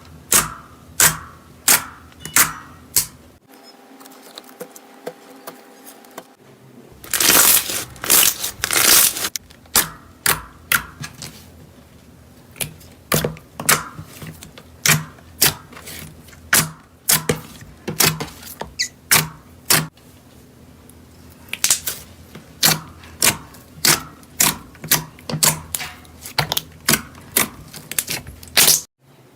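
Soft slime being squeezed and pressed by hand, making a string of sharp clicking pops about one or two a second. It goes quieter for a few seconds early on, and there is a denser crackling stretch about seven to nine seconds in.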